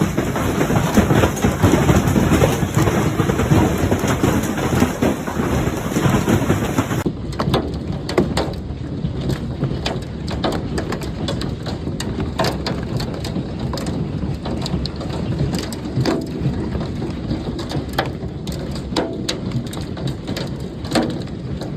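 Hail and heavy rain pelting down in a dense, steady wash. About seven seconds in, the sound changes to a thinner wash with many sharp, separate knocks of hailstones striking hard surfaces.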